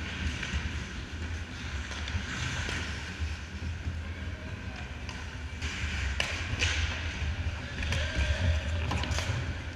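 Ice hockey play: skates scraping and carving on the ice, with a few sharp knocks of sticks and puck, over a steady low hum of the rink.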